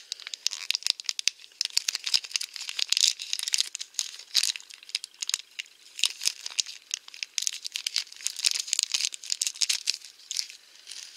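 Crinkling of a small plastic blind bag as fingers squeeze it and work it open, a dense run of irregular crackles throughout.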